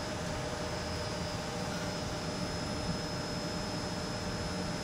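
DMG Gildemeister CTX CNC lathe running under power: a steady machine hum with a constant high whine and a lower steady tone, unchanging throughout.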